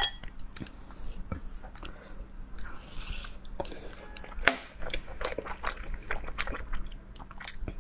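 Close-miked eating: bites into glazed pork belly and wet chewing, heard as many short, irregular clicks and smacks.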